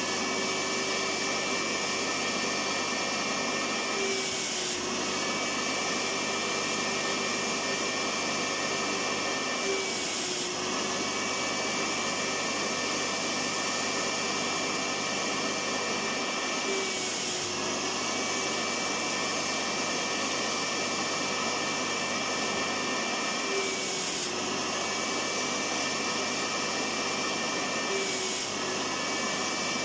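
Electric vacuum cleaner running steadily, a constant rushing noise with a high motor whine, which dips briefly about every six seconds.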